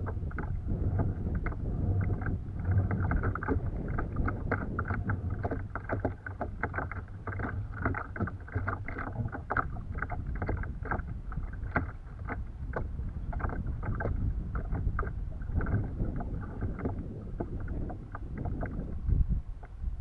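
Choppy water slapping against the plastic hull of a Mako 12 Angler pedal kayak: a rapid, irregular patter of sharp slaps and clicks. Under it, wind rumbles on the microphone.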